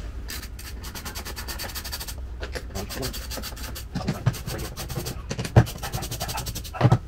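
Ratchet wrench clicking rapidly as 10 mm bolts are backed out, in two long runs of fast, even clicks, with a few dull knocks in the second half.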